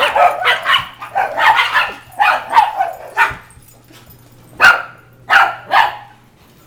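Small dogs barking and yapping during rough play: a quick run of barks, a short lull about three and a half seconds in, then three sharp single barks.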